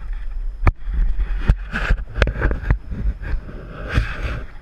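Raft paddles working the river water: splashing, with several sharp knocks in between. Low wind rumble on the microphone underneath.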